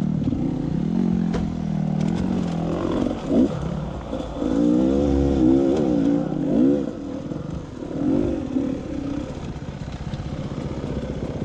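Dirt bike engine revving up and down again and again, as when riding single-track, with a couple of sharp knocks in the first few seconds.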